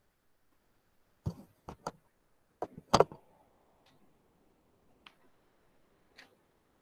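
A scattering of short, sharp clicks and knocks, close to the microphone: several in the second and third seconds, loudest about three seconds in, then a few fainter ones.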